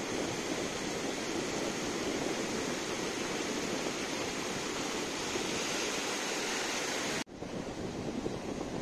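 Ocean surf washing onto a sandy beach: a steady hiss of breaking waves and foam. About seven seconds in it cuts off abruptly, then comes back softer and duller.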